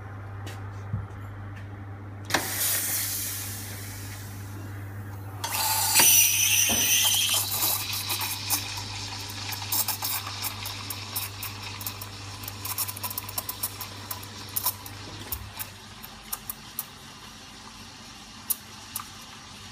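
Espresso machine running with a steady low hum while a shot is pulled, then its steam wand hissing, with a short burst of steam a couple of seconds in. From about five seconds in the wand steams milk in a pitcher: a loud hiss at first, settling into a quieter hiss with rapid small crackles as air is drawn into the milk; the hum stops about three-quarters of the way through.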